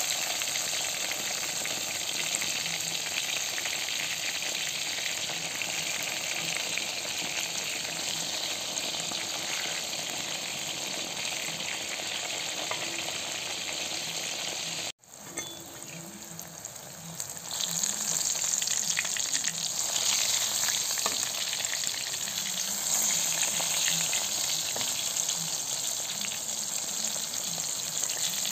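Tempe slices sizzling as they fry in hot oil in a wok, a steady crackling hiss. It cuts out for an instant about halfway through, comes back quieter, and grows louder again a couple of seconds later.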